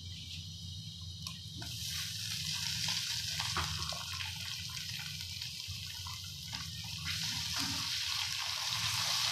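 Chopped tomatoes going into hot oil and fried onions in an aluminium pot, sizzling. The sizzle swells about a second and a half in as the tomatoes hit the oil, with a few light knocks of a wooden spatula.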